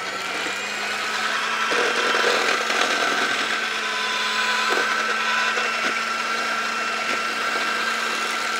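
Electric hand mixer running steadily, its twin metal beaters whipping ice-cream batter in a plastic bowl as the batter starts to fluff up.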